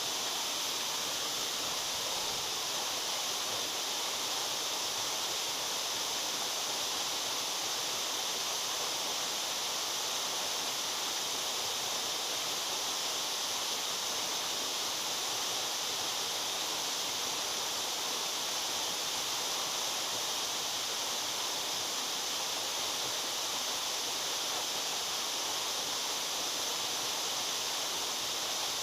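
A waterfall pouring, a steady, even rush of falling water with a bright hiss and no change in level.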